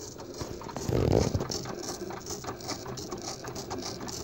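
Cricut Explore Air cutting machine starting a cut, its motors driving the blade carriage and mat in quick, uneven ticking steps. A brief louder low rumble comes about a second in.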